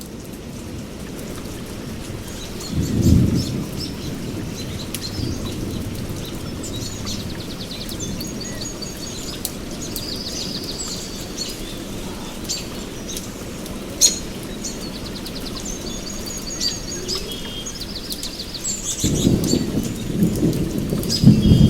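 Rain falling on a camping tent, heard from inside, with scattered drop ticks over a steady hiss. Low thunder rumbles swell about three seconds in and again near the end, and birds chirp and trill through the middle.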